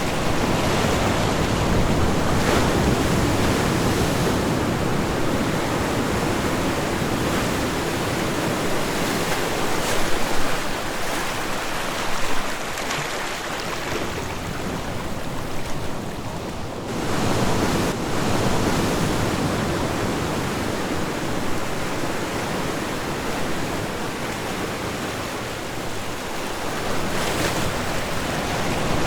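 Ocean waves breaking and washing on a shore, a continuous surf wash that swells and ebbs, with a brief lull about two-thirds of the way through.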